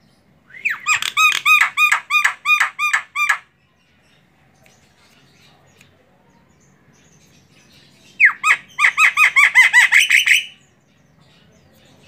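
Female Javan myna (jalak kebo) calling: two runs of rapid repeated notes, about four a second, each lasting two to three seconds, the first starting about half a second in and the second about eight seconds in.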